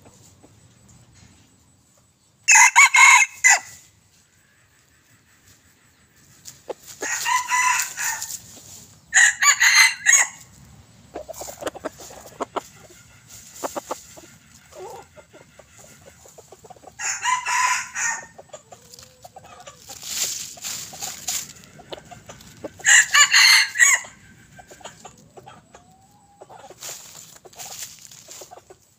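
Young red junglefowl cocks, about eight to nine months old, crowing: five short crows of about a second each, several seconds apart. Softer clicks and rustling in dry leaves come between the crows.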